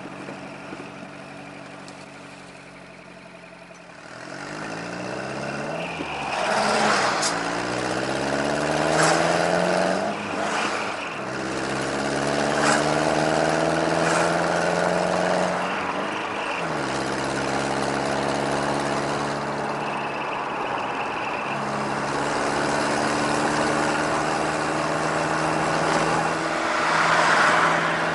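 Subaru Sambar TT kei truck's four-cylinder engine through a homemade split-manifold dual exhaust with Cabton-style silencers, heard from inside the cab with a deep burble. It pulls away and accelerates through the gears, the pitch rising and dropping at each shift about three times, then settles into steady cruising.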